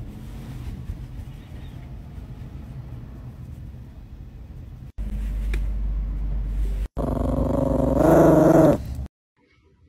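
A dog growls for about two seconds near the end, the loudest sound here, and cuts off abruptly. Before it there is only low rumbling background noise.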